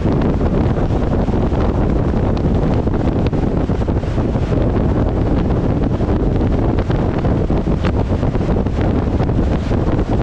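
Wind buffeting the microphone of a camera on a motor scooter riding at road speed: a steady, loud, deep rush with no let-up.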